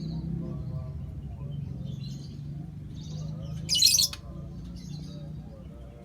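Birds chirping in short scattered calls, with one loud, short screech about four seconds in, over a steady low background rumble.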